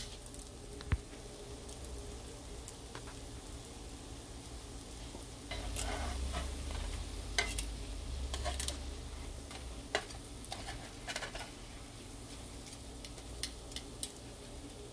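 Butter sizzling steadily in a nonstick frying pan as bacon pancake strips fry. Spatula clicks and scrapes come from about halfway through, as the pieces are shifted around the pan.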